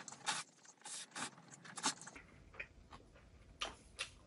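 A person slurping instant ramen noodles in a quick string of short, sharp slurps, with a few more spaced out near the end.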